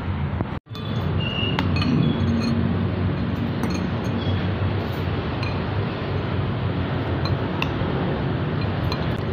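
Metal spoons clinking lightly against ceramic soup bowls, a scatter of short clinks and brief rings over steady background noise. The sound cuts out for an instant just under a second in.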